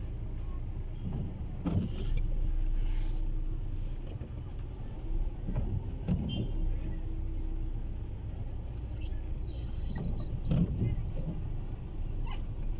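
Street traffic noise: a steady low rumble of passing vehicles, with a few knocks and a brief high, falling squeal about nine seconds in.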